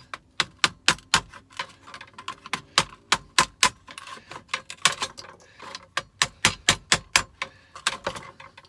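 A thin chisel worked along a circuit board, chipping off components, making a rapid, irregular run of sharp clicks and taps at a few per second.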